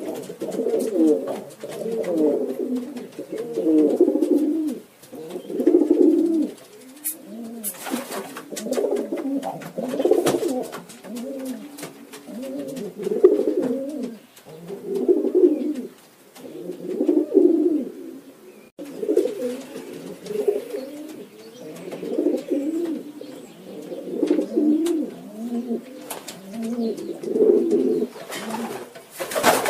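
A flock of domestic pigeons cooing, low bubbling coos overlapping and swelling every second or two, with occasional short clicks.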